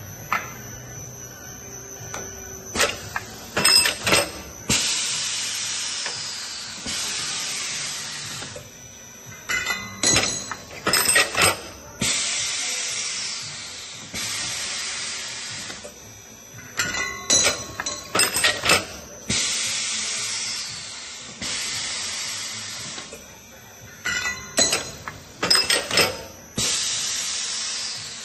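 Automatic U-bolt bending machine cycling four times, about every seven seconds. Each cycle is a cluster of sharp metal clanks and knocks as the bending arms form the rod, followed by a few seconds of hissing.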